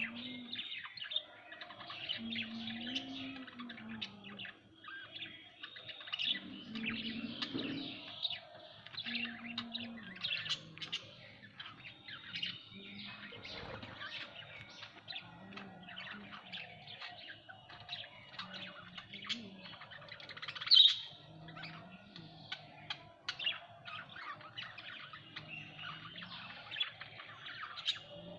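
Budgerigars chirping and chattering constantly in quick, overlapping high chirps, with one louder sharp chirp about two-thirds of the way through.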